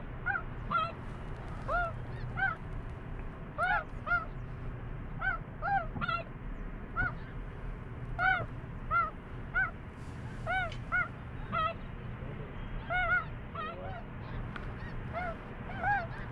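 Snow geese calling: a steady string of short, high-pitched yelping honks, about one to two a second.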